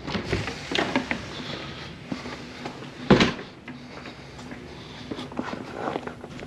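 Footsteps and a house door being opened and shut, with one loud knock from the door about three seconds in.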